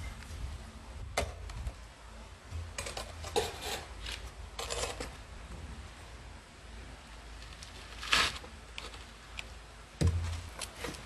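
Fired glazed pottery being taken out of a wood-fired kiln chamber: scattered ceramic clinks and short scrapes as pieces are lifted and set down, with a sharper knock about ten seconds in.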